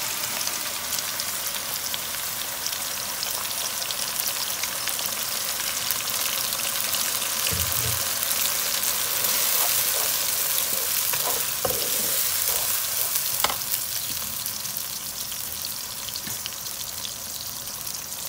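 Blended spice paste of onion, turmeric, ginger and garlic sizzling in hot oil with sliced shallots in a non-stick wok, stirred with a wooden spatula. The sizzle swells to its loudest about halfway through and eases toward the end, with a few light knocks along the way.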